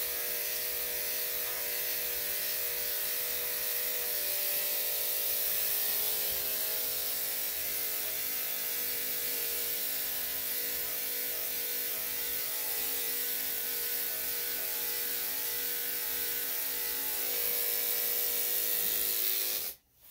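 Electric dog grooming clippers running steadily, a motor hum with a hiss above it, as the matted coat is shaved off; they are switched off abruptly near the end.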